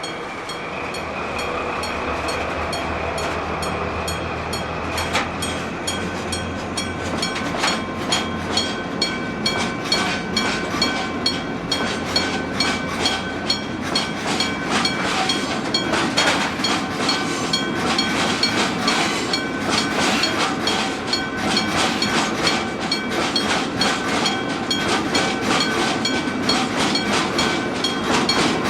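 Freight train rolling over a level crossing, its wheels clicking rhythmically over the rail joints, while the crossing's electric gong warning bell (denshō-shiki type) keeps striking with a steady ring.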